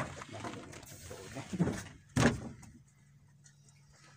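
Knocks and thumps from handling catch and gear aboard a small wooden fishing boat: a sharp knock at the start, scuffling, and a louder thump about two seconds in, then only a faint low steady hum.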